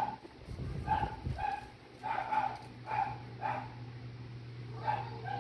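An animal giving about ten short, high-pitched yaps in loose clusters, over a steady low hum.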